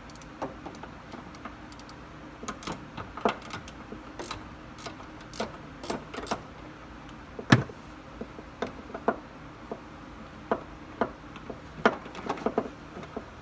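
Irregular metallic clicks and clinks of door-hinge parts and hardware being handled and fitted by hand, with one louder knock about seven and a half seconds in.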